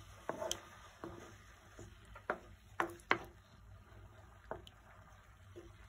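A wooden spoon stirring hard-boiled eggs in a thin adobo sauce in a pan, with a few light, irregular knocks of the spoon against the pan, the sharpest ones two to three seconds in.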